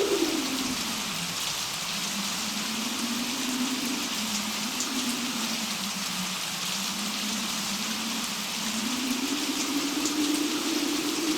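Steady rain, with a low wind howl that slowly rises and falls in pitch and climbs higher near the end.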